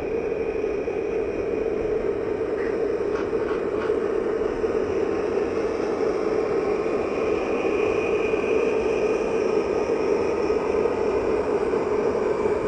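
HO scale model oil train running past: a steady rolling rumble and hiss of the tank cars' wheels on the track, mixed with the diesel engine sound that Soundtraxx Tsunami sound decoders play through the speakers of the tunnel-motor locomotives pulling the train.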